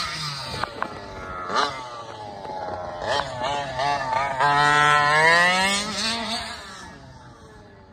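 Primal RC Raminator large-scale RC monster truck with a gas two-stroke engine, revving up and down as it drives. It is loudest with a long rising rev about halfway through, then falls away and fades near the end.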